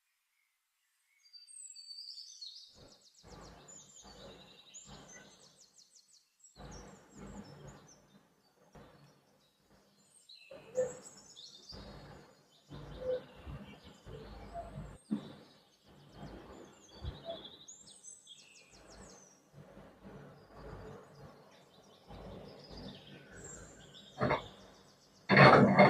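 Birds chirping, with irregular knocks and clatter throughout and a few louder bursts near the end.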